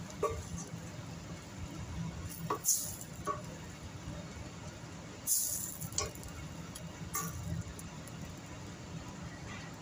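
Wooden spoon stirring thick, chunky tomato sauce with vegetables in a stainless steel pan, with several sharp knocks and scrapes as the spoon hits the pan.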